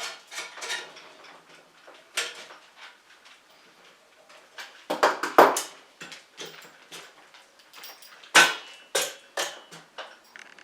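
Metal bike parts and tools clinking and knocking while BMX cranks and sprocket are fitted: irregular clicks and clanks, with a loud cluster about five seconds in and a sharp knock a little past eight seconds.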